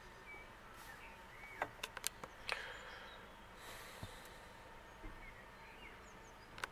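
A few soft clicks and taps from a handheld diagnostic scan tool being handled and its buttons pressed, a cluster of them about two seconds in and one more near the end, over a quiet background.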